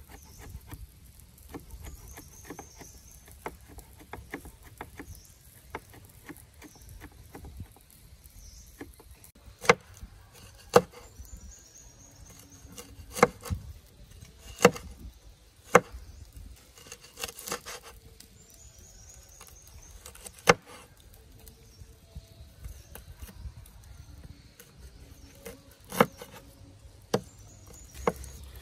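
Chopping: light taps and clicks give way, about a third of the way in, to about eight sharp single strikes at irregular gaps of a second or more. Insects chirp in the background.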